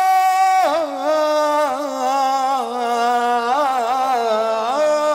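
A man singing a naat solo in a long, drawn-out melisma with no clear words: a held note drops in pitch less than a second in, then the voice winds up and down in ornamented, wavering phrases.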